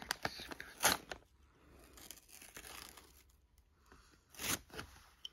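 Paper tearing and rustling as a sticker and tape are peeled off a folded paper gift bag, with two short louder rips, about a second in and again about four and a half seconds in.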